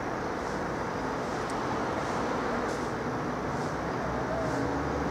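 Steady rumble of distant vehicles, growing slightly louder near the end, with a few faint high ticks.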